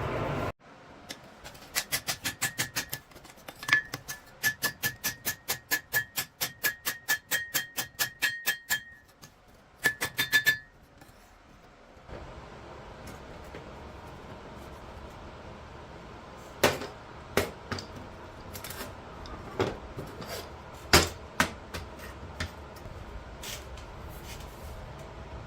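Blacksmith's hammer striking steel on an anvil, about three to four blows a second with a clear ring on each, then a brief second flurry. After that a steady hiss carries on, broken by scattered sharp taps.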